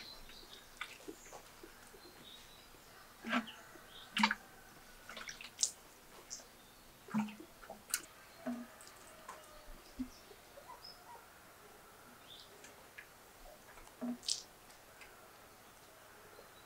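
Water from a plastic jug being poured and splashed onto a stone floor, heard as irregular short drips, splashes and light knocks, with a few faint bird chirps between.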